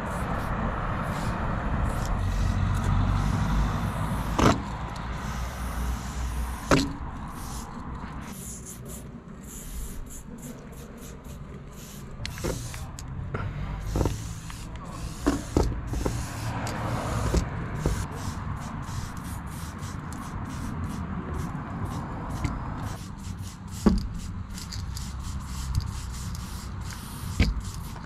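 Aerosol spray paint can hissing in stretches as black paint is sprayed onto a wall, over a steady low rumble. A few sharp clicks stand out along the way.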